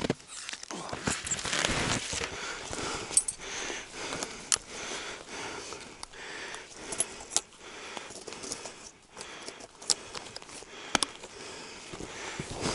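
Rustling of winter clothing and leather gloves with scattered light metallic clicks and jingles as an IZh-54 side-by-side shotgun and its sling are handled.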